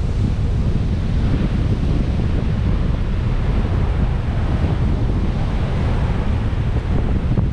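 Heavy storm surf crashing and washing up the beach in strong onshore wind, with the wind buffeting the microphone as a steady low rumble under the wash of the waves.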